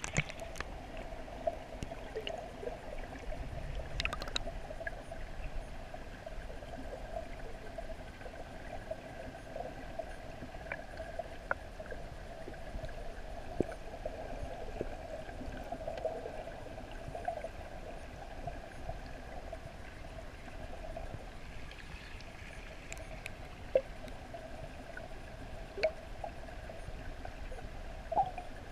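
Underwater ambience in a sea turtle tank: a steady muffled hum with water gurgling, broken by a few sharp clicks and taps.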